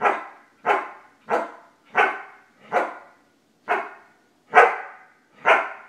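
Australian cattle dog (blue heeler) barking on command, eight single barks evenly spaced at a little under one a second, the dog counting to ten. The barks slow slightly toward the end, and one about four and a half seconds in is the loudest.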